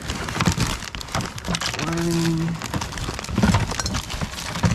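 Rustling and crinkling of items being handled and rummaged through, with many small knocks, and a short steady hum about two seconds in.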